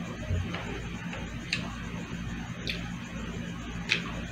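Mouth sounds of someone eating grapes: a few short, wet clicks of chewing, the loudest near the end, over a steady low hum.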